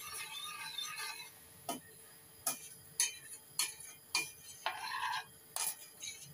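Metal spoon stirring sauce in a stainless steel saucepan, clinking against the pan's side and bottom about every half second, some strikes ringing briefly.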